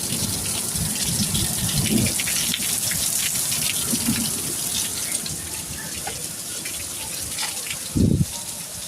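Heavy rain pouring down steadily, a dense hiss of water. About eight seconds in there is a short, low thump.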